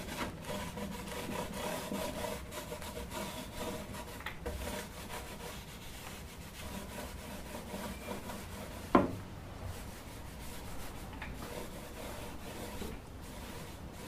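Small paint roller rubbing over a polystyrene beehive box as paint is rolled on, with a single sharp knock about nine seconds in.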